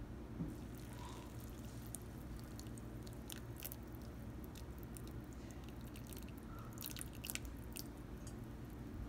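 Water poured slowly from a glass jug onto washed tapioca pearls in a glass bowl: a faint trickle with many small crackles and ticks as the water seeps in among the pearls, dying away near the end.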